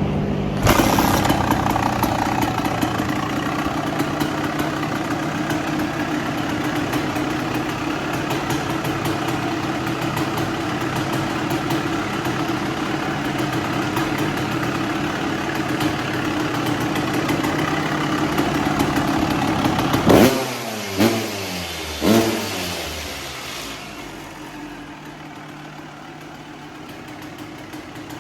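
2001 Kawasaki KX250's two-stroke single-cylinder engine running steadily at raised revs, now that a new stator, wiring harness and CDI box have restored its spark. About twenty seconds in it is blipped three times, the revs falling away after each, and it then settles to a quieter idle.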